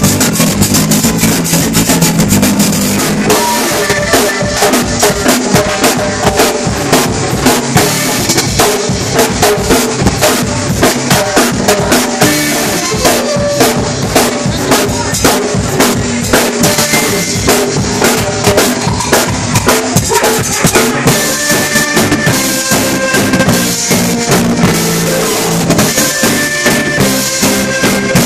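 Live band playing a cumbia, with a drum kit keeping a steady beat under electric guitar and trombone.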